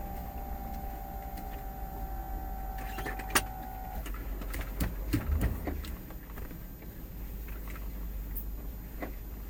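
Car cabin with the engine running low underneath. A steady electric motor whine stops about four seconds in, followed by a sharp click and a few clicks and knocks.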